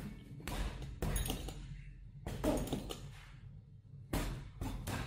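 Boxing gloves punching a heavy punching bag: a run of sharp thuds at uneven spacing, some landing in quick pairs.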